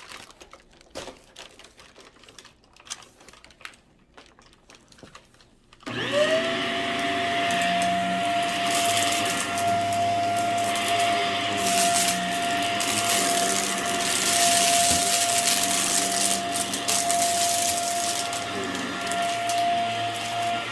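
A few light clicks and taps, then about six seconds in a Hoover vacuum cleaner switches on, its motor whine rising quickly to a steady pitch. It runs on with a loud suction hiss and crackling as it picks up debris from the rug.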